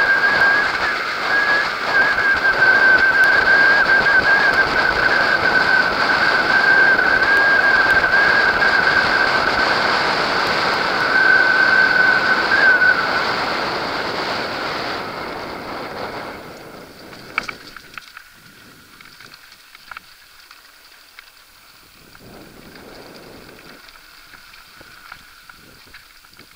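Wind buffeting the microphone and tyres rolling on gravel during a fast mountain-bike descent, with a steady high whistle over the noise. About sixteen seconds in it drops away to a much quieter stretch with scattered clicks and rattles from the bike on a dirt singletrack.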